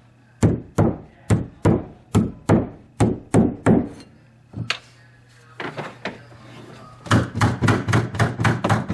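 A mallet striking a carpet stair tool about nine times in a steady rhythm, driving the carpet into the crease of a stair step. Near the end comes a quick run of about a dozen stapler shots fastening the carpet.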